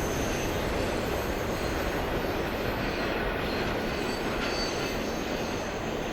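A train rolling past with a steady rumble of wheels on rail and faint, high wheel-squeal tones coming and going.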